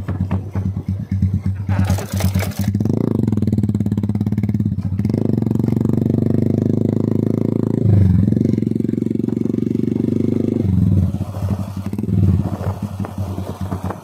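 Motorcycle running through an aftermarket Akrapovic-replica slip-on silencer while riding, the engine note holding steady under throttle. The note dips briefly about eight seconds in and drops off near eleven seconds. There is a short rushing noise about two seconds in.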